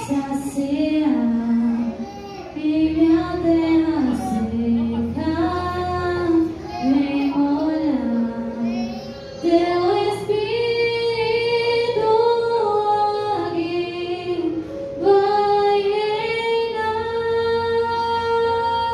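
Mixed church choir singing a hymn in unison and harmony, with keyboard accompaniment underneath; from about two seconds before the end the voices hold a long sustained chord.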